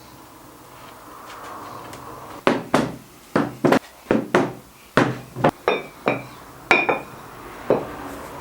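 A run of about a dozen sharp knocks on wood, starting about two seconds in, uneven in spacing and some in quick pairs, with a brief ringing after a few of them.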